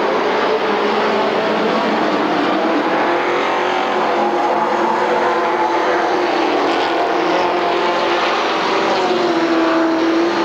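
A pack of racing stock cars running hard around the oval, several engine notes overlapping in one continuous drone. Near the end one engine's pitch rises and levels off.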